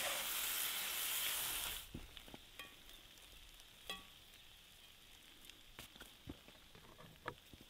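Egg noodles and mushrooms sizzling in a hot cast-iron skillet as they are stirred with a wooden spoon. The sizzle cuts off suddenly about two seconds in, leaving only a few light clicks and clinks.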